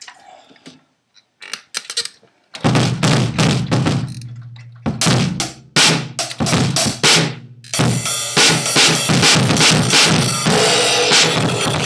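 Drum kit played with a single bass drum pedal: a few light hits at first, then loud, busy playing from about two and a half seconds in, with bass drum kicks under the rest of the kit. The playing grows denser and brighter from about eight seconds in.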